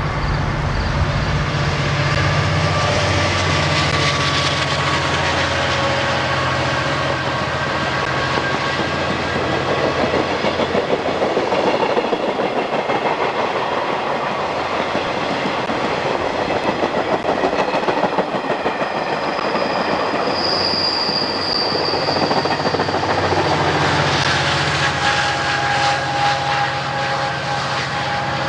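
GO Transit commuter train of bilevel coaches passing on the main line: the rumble and clickety-clack of the coach wheels on the rails, with a diesel locomotive's engine drone at the start and again in the last few seconds. A brief high-pitched wheel squeal comes about twenty seconds in.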